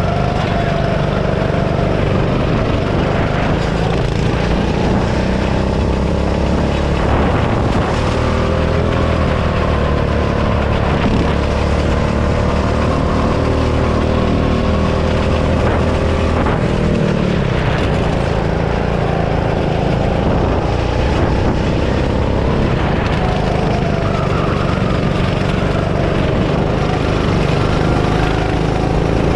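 Go-kart engine running hard on a lap, heard from the driver's seat, its pitch dropping and climbing again as the kart slows for corners and accelerates out of them.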